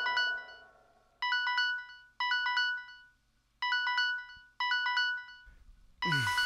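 Electronic phone ringtone: a short, bright chime figure of a few notes, repeated six times with brief silent gaps between. Near the end a noisy whoosh with a falling pitch sounds over it.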